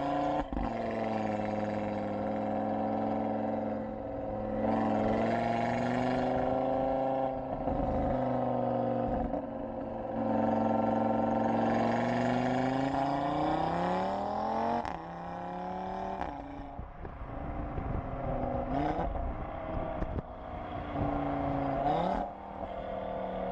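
Audi RS3's turbocharged five-cylinder exhaust recorded close to the tailpipes while the car accelerates hard, the note rising through the revs and dropping sharply at each of several gear changes. Several of the shifts carry a short sharp crack.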